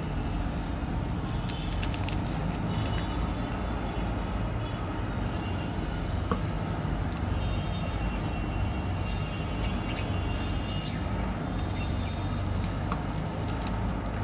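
Steady low rumble of road traffic in the background, with a few faint high chirps. Scattered small clicks and crinkles from plastic candy wrappers being handled.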